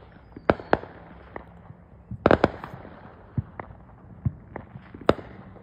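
Fireworks going off: sharp bangs and pops at irregular intervals. The loudest is a quick cluster of several bangs a little over two seconds in.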